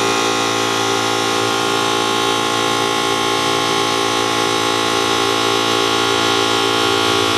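Air compressor running steadily, a loud even machine drone with a constant pitch, as the freshly mounted tubeless motorcycle tire is inflated to seat its beads on the soapy rim.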